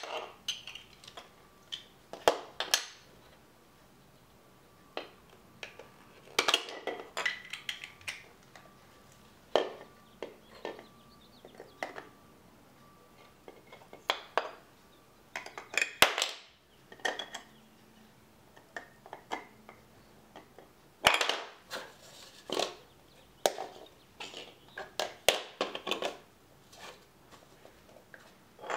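Plastic LEGO DUPLO bricks clacking and knocking together in irregular clusters as they are handled and stacked into a tower, with quiet stretches between.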